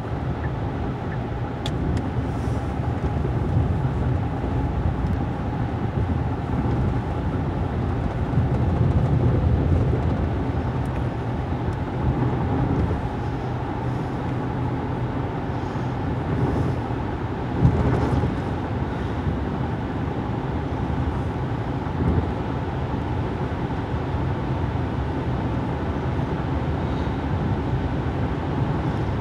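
Steady road noise inside a moving car's cabin at highway speed: tyres and engine running evenly, with one short thump a little past halfway.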